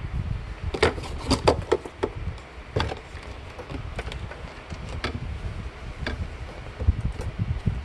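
Plastic parts of a water softener's control valve being handled and its cover fitted: a string of irregular clicks and light knocks over a low handling rumble.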